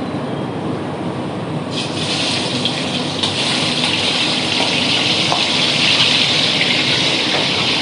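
Water running hard from a kitchen tap, starting abruptly about two seconds in and continuing steadily, over a steady low hum.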